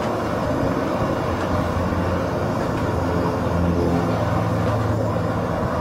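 Backpacking canister gas stove burning steadily under a pot of water being heated toward the boil: a continuous, even rushing noise.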